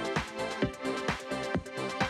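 Background music with a steady drum beat, about two beats a second, over sustained chords.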